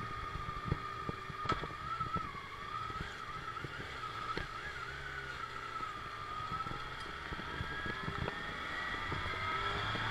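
Motorcycle engine running at low speed as the bike pulls away and rolls slowly, with a high whine that wavers in pitch and a few light knocks.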